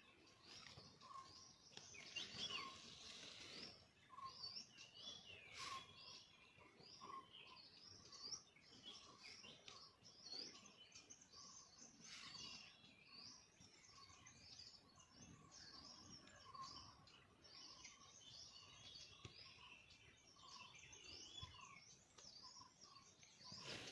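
Faint chorus of many birds chirping and trilling, with a short lower note repeated about once a second.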